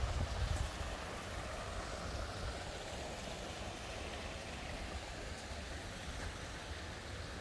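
Steady rushing outdoor noise with a low rumble of wind on the microphone.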